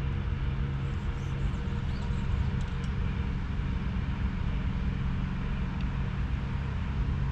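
A steady low mechanical hum, like an engine or motor running, made of several even pitched tones that do not change in level or pitch.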